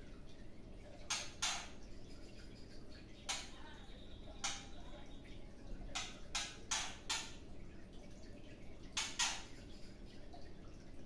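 Short harsh rasping calls from a caged songbird, about ten in all: a pair, two single calls, a quick run of four, then another pair near the end.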